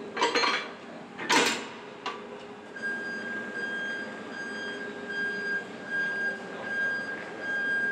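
A vehicle's high-pitched warning beeper starts about three seconds in and keeps pulsing on and off. Before it come a couple of short hissing bursts.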